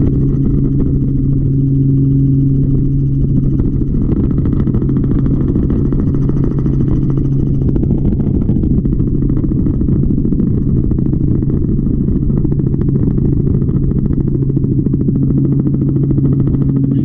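A steady, loud, low mechanical drone with a constant hum that does not change in pitch.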